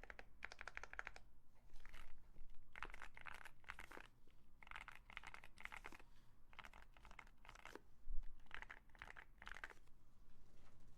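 Typing on the YUNZII AL66 mechanical keyboard: bursts of rapid key clicks with short pauses between them.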